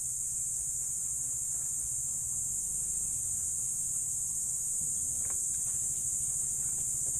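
Steady high-pitched chirring of insects over a low hum, with a few faint clicks about five seconds in.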